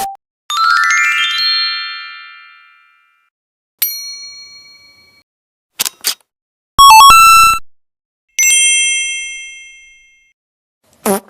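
A string of separate synthetic sound effects with silent gaps between them: a quick rising run of chime tones that rings out, a single bell-like ding, two quick clicks, a short loud electronic jingle of stepped beeps, another ringing chime, and a brief blip near the end.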